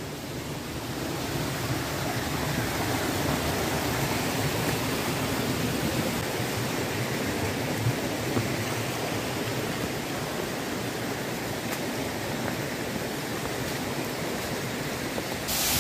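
A waterfall pouring steadily: an even, dense rush of falling water. It turns brighter and hissier just before the end.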